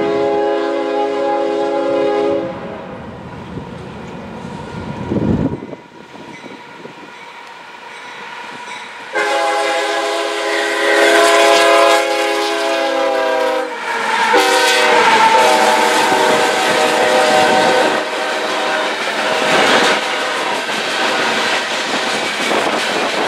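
Union Pacific freight train's locomotive horn blowing a chord. The first blast stops about two seconds in. A second long blast starts about nine seconds in and drops in pitch as the locomotive passes at high speed, followed by the steady rumble and clatter of freight cars rolling by.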